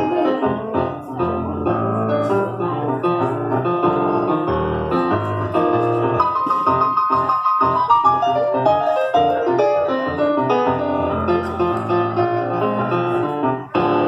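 Piano voice of a Korg stage keyboard played live: busy runs of notes over chords, with a couple of held high notes about halfway through.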